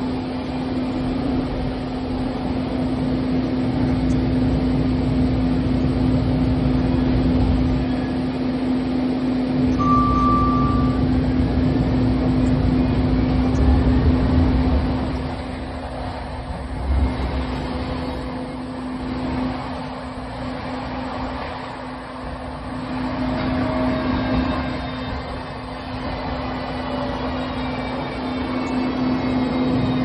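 Siemens S200 light rail vehicle running: a steady hum over a low track rumble that is heavier in the first half and eases about halfway through. Faint rising whines near the end.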